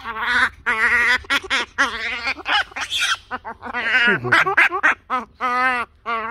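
Animal calls: a rapid series of short, loud calls with a wavering pitch, one of them dropping low about four seconds in.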